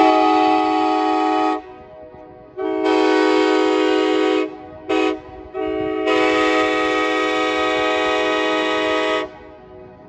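Nathan K5LA five-chime air horn, a 1977 example from an Amtrak FL9, blowing a multi-note chord in two long blasts, a short one, then a final long blast of almost four seconds: the grade-crossing pattern.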